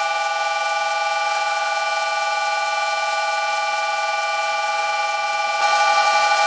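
Vintage metal lathe running at speed with a steady whine of several fixed pitches, as a round-nose tool bit faces the end of a spinning nylon workpiece. The cutting hiss grows louder about five and a half seconds in as the cut gets heavier.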